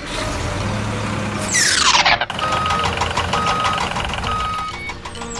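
A vehicle engine rumbles, a loud falling whoosh sweeps down near the two-second mark, then a reversing alarm gives three evenly spaced beeps.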